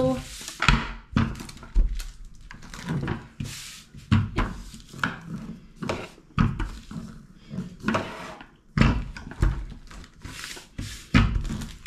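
Rolling pin rolling out a thin sheet of pastry dough on baking paper on a countertop: repeated uneven rolling and rubbing strokes with dull knocks.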